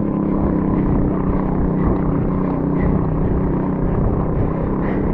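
Steady wind buffeting on a mountain biker's action-camera microphone, with the bike's tyres humming on a concrete road.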